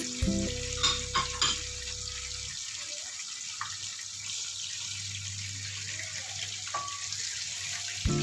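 Tapioca-starch-coated pork deep-frying in hot oil: a steady bubbling hiss, with a few sharp clicks of a utensil about a second in.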